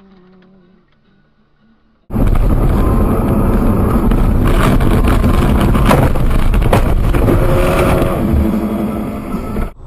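Loud, harsh in-car road and engine noise recorded by a car's dashcam. It starts suddenly a couple of seconds in, with several knocks and bumps, as the car leaves a snowy road and crashes into the trees, and it cuts off abruptly near the end.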